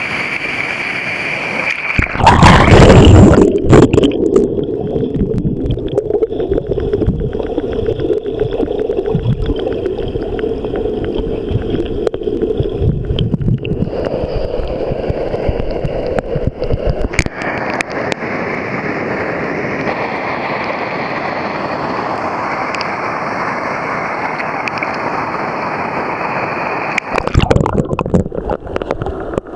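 Yoshino River water gurgling and rushing, with a loud burst of splashing about two seconds in and another near the end.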